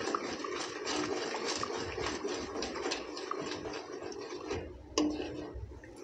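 A metal spoon stirring sugar syrup in a stainless steel kadhai, scraping and clicking against the bottom of the pan several times a second as the sugar dissolves, with one sharper tap about five seconds in.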